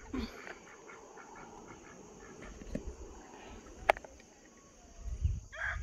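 Quiet backyard flock of chickens and ducks with scattered faint calls and a sharp click about four seconds in. Just before the end a rooster begins to crow, a held call with a clear pitch.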